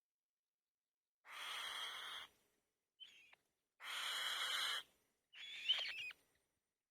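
Bird chicks giving raspy, hissing begging calls in three bursts of about a second each, with a brief squeak between the first two. The last burst is mixed with shrill, sliding chirps.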